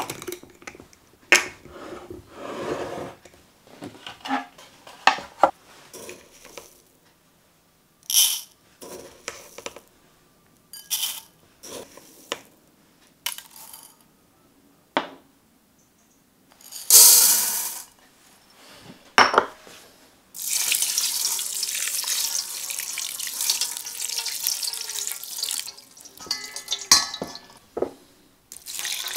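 A glass storage jar's wire clasp clicks open, then dry basmati rice is scooped and poured into a bowl, with light clinks and rattles. About twenty seconds in, water starts running steadily over the rice in a metal sieve to rinse it. A few knocks of metal on metal come near the end.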